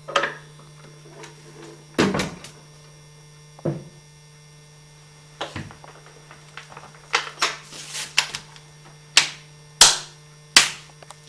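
Felt-lined wooden packing case set down over a display case with a few dull knocks, then its metal hook latches snapped shut with three sharp clicks near the end. A steady electrical hum runs underneath.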